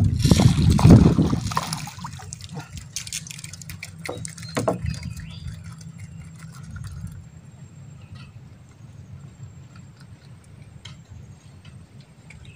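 Water splashing as a small hooked fish is pulled from the river, loudest in the first two seconds. Then comes a quieter stretch of small clicks and knocks as the fish is handled in the boat.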